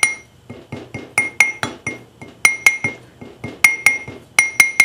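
Hammer tapping on a metal driver to seat a replacement seal in a hydraulic floor jack: quick light blows in groups of two or three, each with a bright metallic ring.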